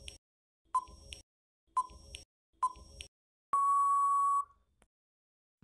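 Countdown timer sound effect: three short beeps about a second apart, then a longer steady beep of about a second signalling time out.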